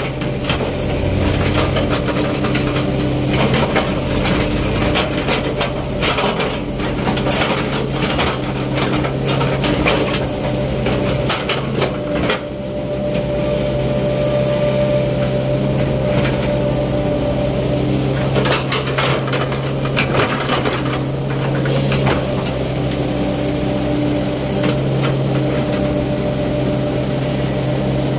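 Diesel engine of a Sumitomo S265 excavator running steadily under load while digging a drainage trench, with irregular knocks and clatter as the bucket scrapes and scoops stony soil.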